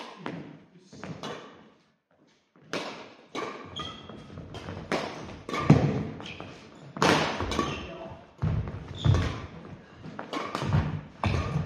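Badminton rally: repeated sharp strikes of rackets on the shuttlecock and thuds of players' footsteps on a wooden gym floor, coming thicker and louder after a brief silent gap about two seconds in, ringing in a large hall.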